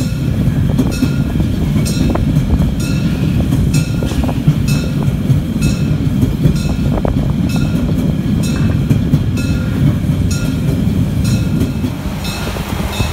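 Narrow-gauge steam train heard from inside a vintage carriage while running: a steady low rumble and rattle, with repeated clicks of the wheels over the rail joints.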